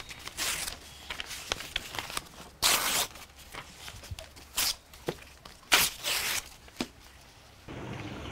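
Sheets of paper being torn by hand: a series of separate short rips, the longest about three seconds in.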